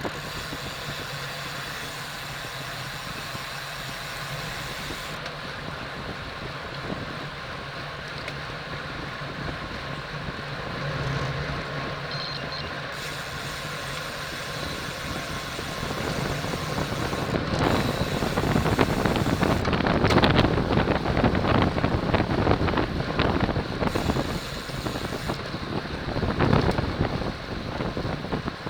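Wind rushing over the microphone of a racing cyclist's onboard camera, with road and bike noise beneath it. It grows louder and gustier about two-thirds of the way through as the speed picks up.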